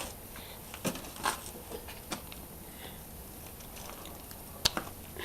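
Scattered small clicks and knocks of hands handling the oil bottle and filler, with one sharp click near the end.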